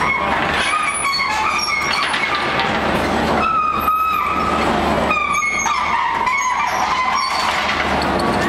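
Steady roar of the open glass furnace, with a series of high metal-on-metal squeals from the pot carriage and its tools being worked at the furnace mouth; the longest, loudest squeal comes about halfway through.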